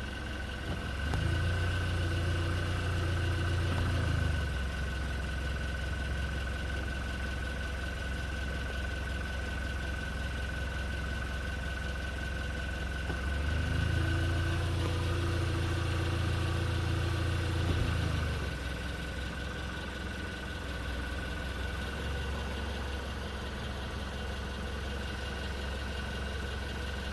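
2019 Hyundai Tucson's 2.0L Nu four-cylinder idling cold, with a faint metallic knocking that the owner takes for piston slap. Twice the low engine drone grows louder for a few seconds, then settles back.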